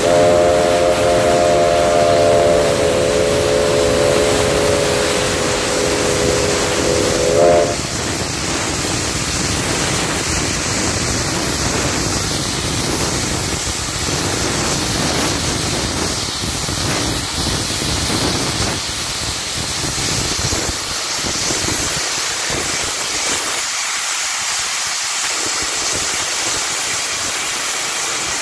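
Steam whistle of a 1947 Baldwin 2-8-2 Mikado steam locomotive sounding one long blast of several notes together. The blast falls slightly in pitch and cuts off after about seven and a half seconds. It is followed by the steady hiss and rumble of the locomotive under way.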